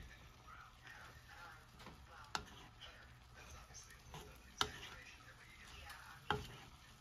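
Wooden spatula stirring diced pork lung and heart in a granite-coated frying pan, with faint scraping and rustling of the pieces. Three sharp knocks of the spatula against the pan come roughly two seconds apart.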